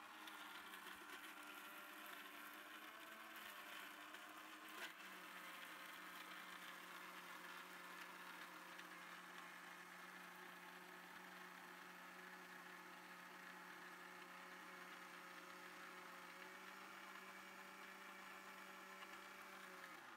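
Faint, steady whine of a Preethi mixer grinder's motor running with its steel jar, grinding a wet masala paste of onion, ginger, garlic and spices. There is a brief knock about five seconds in, where the pitch shifts slightly, and the motor cuts off at the very end.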